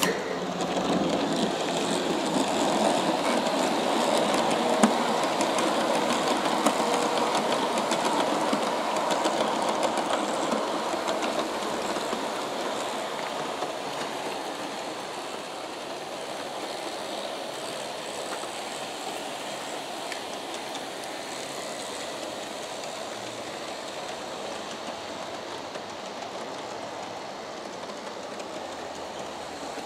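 G-scale (1/29) model passenger train, Aristo-Craft E9 diesels pulling nine heavyweight cars, running along the track with a steady rolling noise of wheels on rail. It is louder for about the first twelve seconds, then settles quieter.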